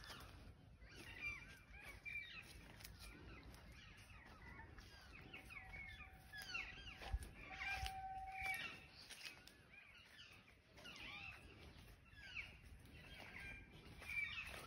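Faint chorus of birds chirping and calling, many short quick calls overlapping, with a steady high tone held for a couple of seconds in the middle.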